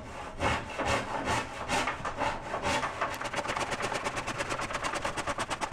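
Disston D-115 hand rip saw cutting along the grain of a cherry board in repeated rasping strokes; about three seconds in, the strokes become faster and evenly spaced.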